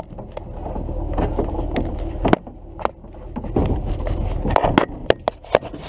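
Handling noise as gear is moved around: scattered sharp clicks and knocks at irregular intervals over a low rumble.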